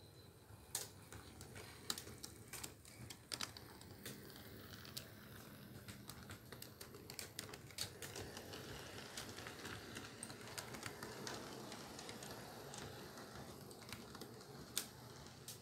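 HO scale model intermodal train rolling past, its metal wheels clicking irregularly over the rail joints over a faint rumble of the cars on the track. The rumble swells about halfway through as the cars pass closest.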